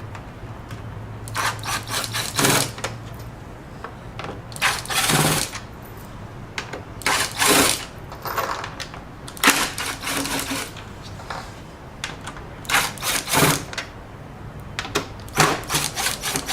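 Impact driver hammering in short bursts, about six times, as it backs out the screws holding a garage door window frame.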